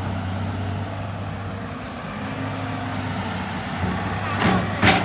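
Hitachi EX200 excavator's diesel engine running steadily under load. Two short, sharp bursts stand out near the end.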